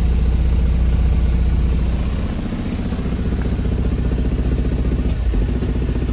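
Diesel engine idling steadily with an even low rumble, heard from inside a semi truck's sleeper cab.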